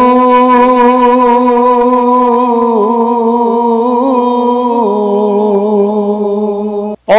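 A man singing Punjabi Sufi kalam, holding one long note that steps slightly down in pitch about five seconds in. It breaks off abruptly near the end.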